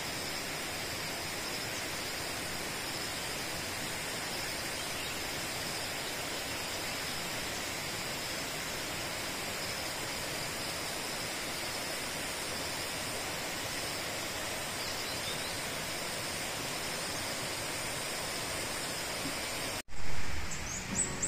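Steady rushing of a forest stream, with a faint high-pitched drone above it. It cuts off abruptly near the end as a louder sound begins.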